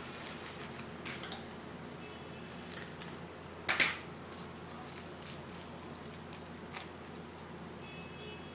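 Foil baseball-card pack wrappers crinkling and tearing as packs are opened, with cards being handled in between: a run of short, scattered crackles, the loudest a sharp crinkle about four seconds in.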